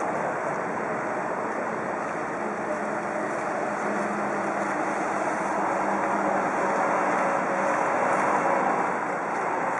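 Steady hum of city traffic. A faint engine hum comes in a few seconds in, and the noise swells slightly near the end.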